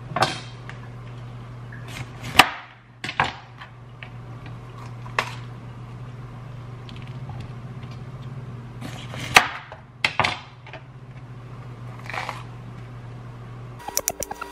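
Chef's knife cutting bell peppers on a plastic cutting board: single sharp knocks of the blade striking the board every second or two, over a steady low hum. Near the end comes a quick run of chops.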